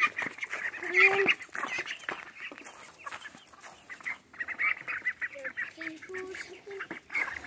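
Chickens clucking, with ducks among them: a busy scatter of short overlapping calls, loudest about a second in.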